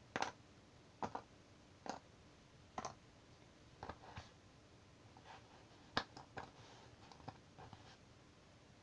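Cardboard jigsaw puzzle pieces clicking and tapping as they are handled, set down and pressed together on a puzzle board. The light clicks come irregularly, roughly once a second, with the sharpest one about six seconds in.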